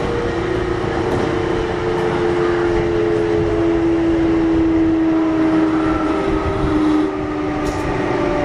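Kintetsu 1021 series electric train running on its Hitachi GTO-VVVF inverter: several steady inverter and traction-motor tones glide slowly down in pitch as the train slows, over a rumble of wheels on track. The sound drops a little in loudness about seven seconds in.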